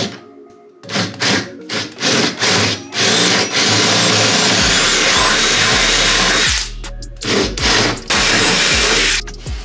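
Cordless Metabo drill boring a hole into a wooden beam, running steadily for about three and a half seconds in the middle.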